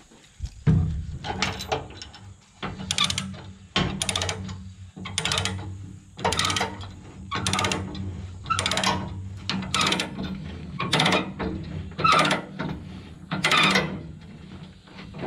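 Ratchet chain binder being cranked tight on a chain, its pawl clicking in a short burst with each stroke of the handle, about a dozen strokes roughly a second apart. The chain is being tensioned to pull a bent bush hog deck back level.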